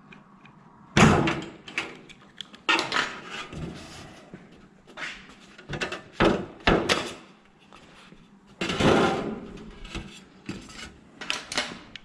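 Sheet aluminum trim stock being worked on a metal brake: a run of loud clanks, rattles and metallic knocks, with a longer clattering rattle near the end.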